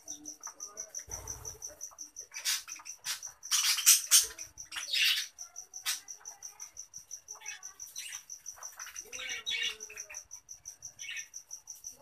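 A flock of budgerigars chirping and chattering while feeding, with a few louder, harsher bursts in the middle. A steady, fast, high-pitched pulsing runs underneath.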